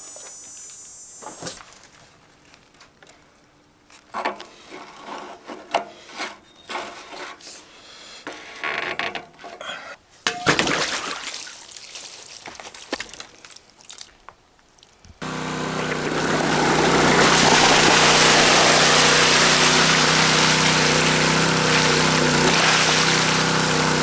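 Scattered light knocks and handling noises, then about two-thirds of the way in the single-cylinder Predator 212cc engine of a semi-trash water pump is suddenly heard running steadily and loud, with water rushing out of the discharge hose.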